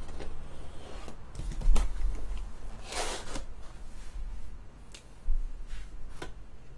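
A cardboard box of trading card packs being handled: a thump about two seconds in as it is set down, a short cardboard scrape a second later, then a few light taps and clicks.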